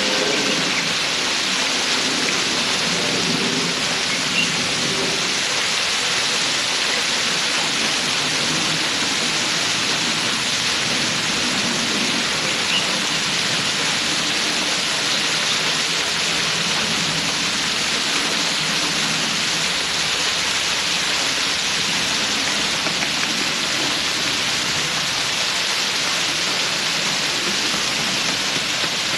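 Steady rushing hiss of falling water.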